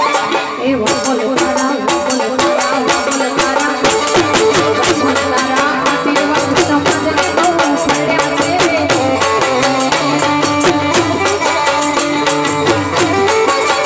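Live Gujarati folk music: harmonium and electronic keyboard playing the melody over a quick, steady percussion beat.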